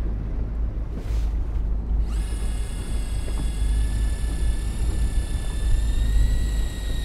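Electric fishing reel motor whining as it winds in line: a high whine with overtones that starts about two seconds in, rising quickly to a steady pitch and stepping slightly higher near the end, over a steady low rumble.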